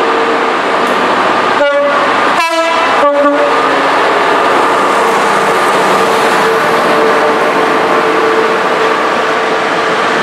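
Class 66 diesel freight locomotive, with its EMD two-stroke V12 engine, passing close with a steady drone. Its horn sounds three short blasts about two seconds in.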